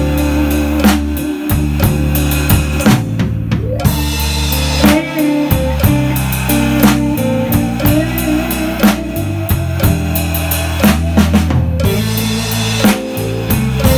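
Drum kit played with sticks, with snare, bass drum and cymbal strokes in a blues groove, over a backing track with sustained bass notes.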